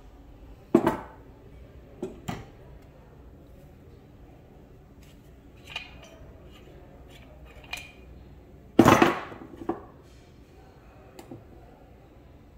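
Metal air-rifle parts clicking and knocking as they are handled and set down on a wooden workbench: a series of separate sharp clicks, with the loudest, a short clatter, near the end.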